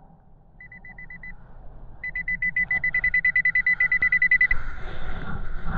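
Nokta Pulsedive underwater metal detector giving its rapid target beeping: a short burst of beeps, then a longer run that grows louder as the coil sweeps over a metal target. A low rumble runs underneath.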